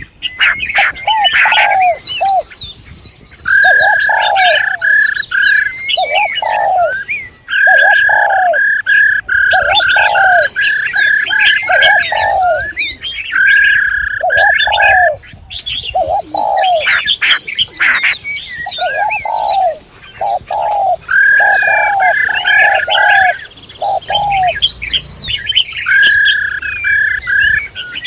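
Several female songbirds calling over one another. There are high, fast trills, runs of quick even chirps, and short arched lower notes that repeat about once a second, with brief pauses a few times.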